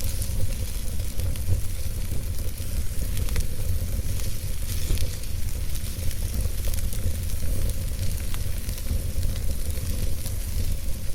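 Campfire burning: a steady hiss with frequent small crackles and pops, over a low, steady rumble.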